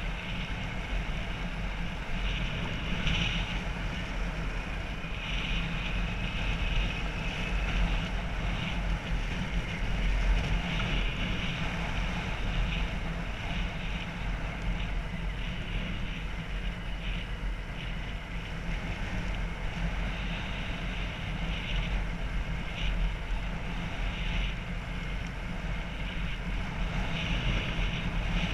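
Motorbike on the move: wind rushing over the microphone with the bike's engine running underneath at a steady pace.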